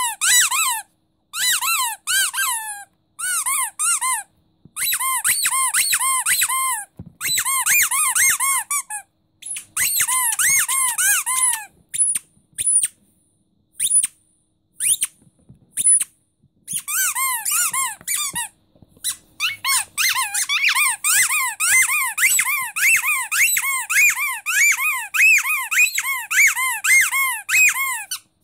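Green rubber starfish squeaky toy squeezed by hand over and over, giving quick runs of squeaks a few a second, each a short up-and-down squeal. The runs stop briefly now and then, and through the middle there are only a few scattered squeaks.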